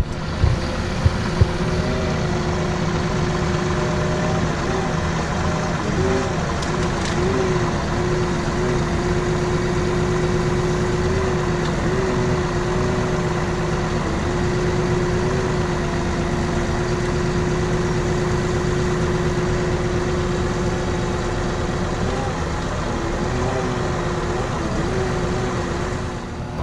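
Syn-Trac system tractor's engine running steadily, with a steady whining tone that wavers briefly now and then and a few sharp knocks about a second in.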